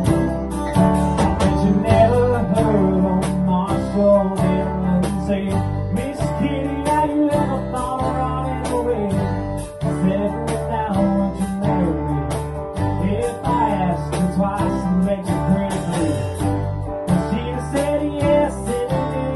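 A live band playing: electric guitar and bass guitar over a steady beat, with a man singing into a microphone.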